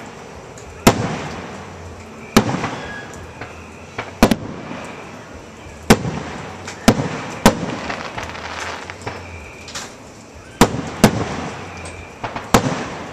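Aerial firework shells bursting: about ten sharp bangs, some in quick pairs, each followed by a rolling echo that dies away.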